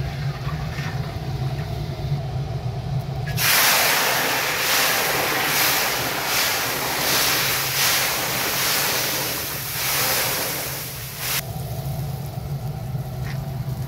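Hot oil in a large cast-iron kazan over a wood fire erupting into a loud hiss as liquid hits it, throwing up a cloud of steam. The hiss starts a few seconds in, surges in waves for about eight seconds, then drops away to a low steady hum with a faint sizzle.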